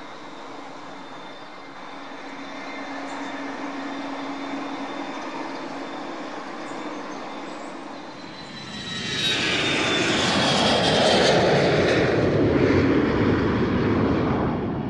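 Cessna Citation S550's twin Pratt & Whitney Canada JT15D turbofan engines running with a steady high whine as the jet rolls along the runway. About eight seconds in, a much louder rushing aircraft engine noise takes over, with a whine that falls in pitch.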